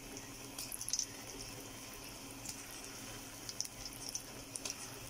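Potato kofta balls deep-frying in hot ghee: a steady sizzle with scattered sharp crackles and pops.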